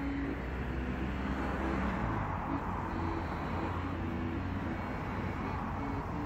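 A road vehicle passing, its tyre and engine noise swelling a couple of seconds in and easing off, over a steady low rumble.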